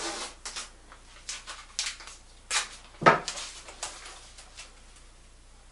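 Blue painter's tape pulled off the roll in several short rips and pressed onto a glass mirror, with one louder knock about three seconds in.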